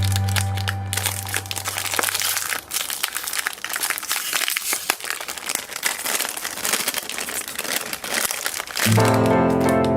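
Foam clay being squeezed and kneaded by hand: a dense, irregular crackling and crinkling. Background music fades out at the start and a keyboard tune comes back near the end.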